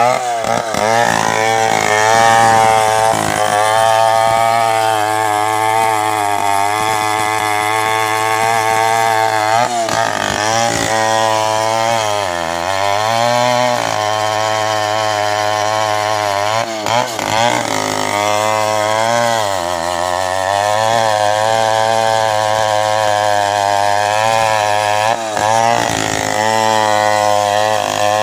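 Gasoline chainsaw ripping lengthwise through a coconut palm log, running at high revs under load. Its pitch wavers throughout and drops clearly several times as the engine bogs in the cut, then climbs back.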